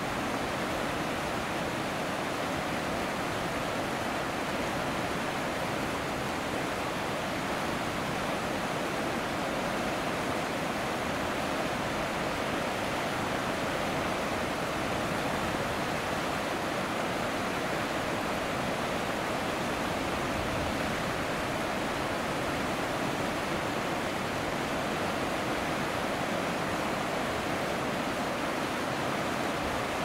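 A wide waterfall pouring in a full curtain onto a rocky riverbed: a constant, even rush of falling water with no change in level.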